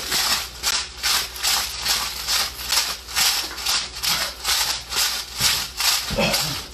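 Hands squeezing and tossing salted chopped cabbage and greens in a stainless steel bowl: a rhythmic rustling, about three strokes a second. The salt is being massaged in to draw the water out of the vegetables for fermenting.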